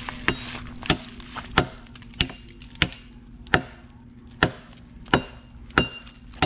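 A blade chopping into wood with steady, even strokes, about ten sharp strikes at roughly one and a half a second, a few of them with a brief metallic ring.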